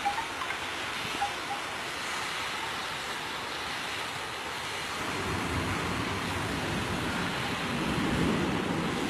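Strong storm wind blowing across the microphone: a steady rushing hiss, with low buffeting gusts building louder in the second half.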